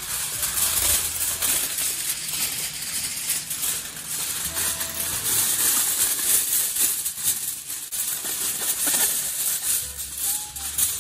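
Sheets of aluminium foil crinkling and rustling as they are handled and spread over a baking dish.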